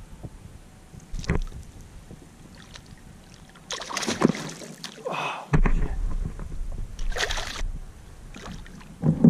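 A hooked speckled trout thrashing at the surface beside a kayak, throwing loud splashes of water: a long burst about four seconds in and a shorter one about seven seconds in.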